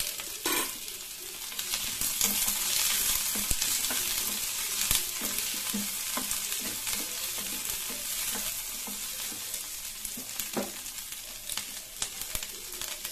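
Chopped onion, green capsicum and garlic sizzling in hot oil in a pan, with a wooden spatula scraping and tapping against the pan as they are stirred.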